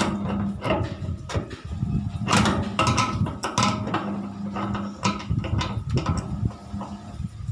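Clicks, knocks and clatter of metal panels and screws being handled as a tumble dryer's casing is screwed back together, with a few short bursts of a steady low hum.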